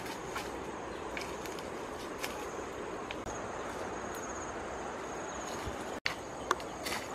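Steady insect drone of the forest, with a thin high buzz that pulses for a second or so about three seconds in, over an even background hiss and scattered faint clicks. Near the end, after a brief dropout, a few light bare footsteps on stones.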